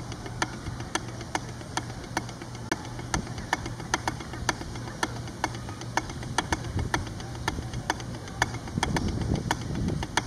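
Wooden drumsticks striking a rubber drum practice pad in crisp, evenly timed strokes, playing the 4-2-1 snare warm-up; the strokes come closer together later on. A steady low hum runs underneath.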